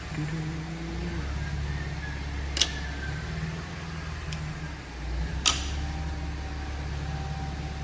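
Steady low mechanical hum with two sharp metallic clicks, about two and a half and five and a half seconds in, and a fainter click between them.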